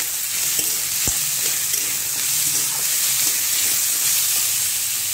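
Diced potatoes and onion sizzling in hot mustard oil in a kadai while a metal spatula stirs them, scraping against the pan, with one sharp knock about a second in.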